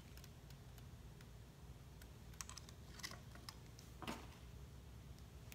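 Faint, scattered light clicks and taps of small metal parts being handled, as clutch springs are fitted into a two-stroke dirt-bike clutch. The loudest tap comes about four seconds in.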